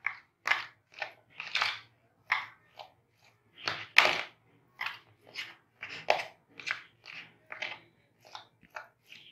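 A fork mashing soft-boiled potatoes in a bowl: a run of short, irregular squashing and scraping strokes, about two a second.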